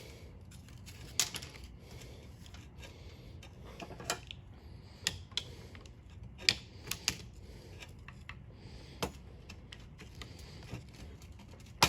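Irregular small clicks and taps of channel-lock pliers working an old, brittle handle off a control switch, the plastic cracking as it gives. The sharpest click comes about six and a half seconds in.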